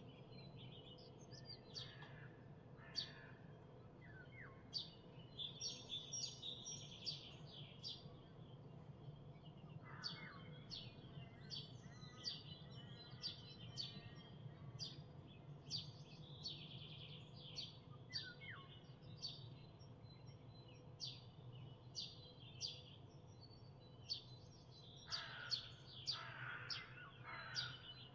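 Songbirds chirping and singing, with many short high calls one after another and a few lower calls about ten seconds in and again near the end. A steady low hum runs underneath.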